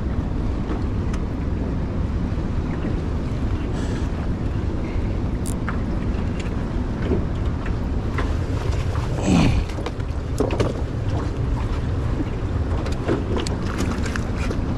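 Steady wind buffeting the microphone on an open boat, a low rumble with scattered faint clicks. About nine seconds in there is one short louder sound that falls in pitch.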